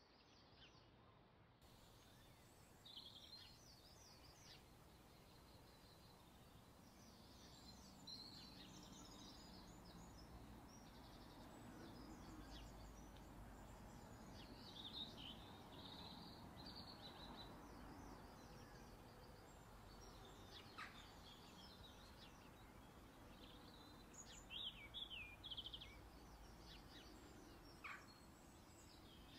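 Faint bird chirping: many short, quick calls in scattered clusters over a low, steady background noise.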